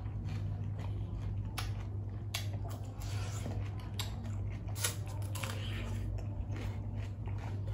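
Close-miked chewing of a mouthful of raw shrimp and fresh greens, with irregular crisp clicks and wet squishing mouth noises. A steady low hum runs underneath.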